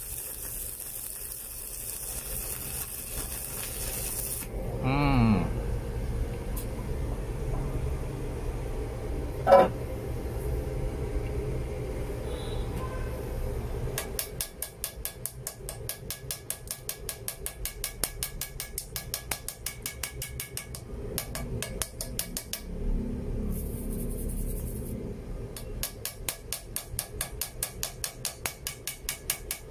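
Stick welding arc crackling with a 3.2 mm electrode for about the first four and a half seconds, then cut off as the arc is broken. A single sharp knock follows, and from about halfway through comes rapid, even tapping, several strikes a second with a short break: a chipping hammer knocking slag off the weld bead.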